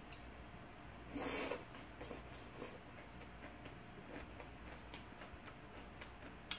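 Close-miked eating sounds: a short, louder rush of noise about a second in, then faint scattered wet clicks of chewing.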